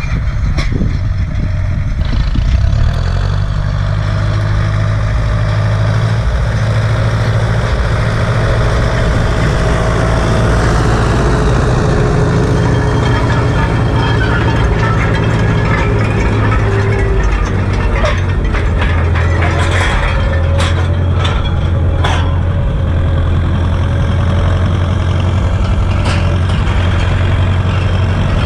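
Turbocharged four-cylinder diesel engine of an Ursus C-360 tractor running steadily under load while pulling a land roller. A few sharp clicks come past the middle.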